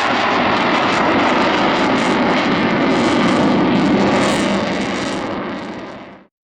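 Loud engine noise of a display aircraft in flight, a dense, steady rushing that fades over the last two seconds or so and then stops abruptly.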